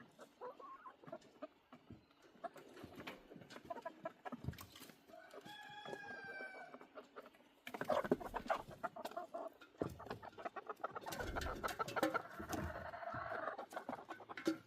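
Chickens clucking and calling. One drawn-out call comes about six seconds in and a longer one near the end. From about eight seconds in there is a stretch of knocking and clattering.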